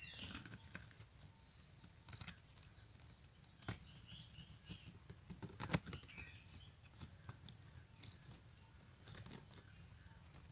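Japanese burrowing cricket (Velarifictorus micado) calling: three short, high-pitched chirps a few seconds apart, about two, six and a half and eight seconds in, over a faint steady high tone.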